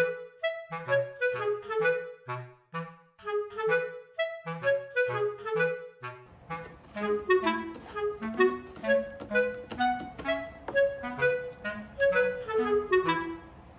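Background music: a light, bouncy melody of short detached notes on a clarinet-like woodwind, with a low steady rumble joining underneath about six seconds in.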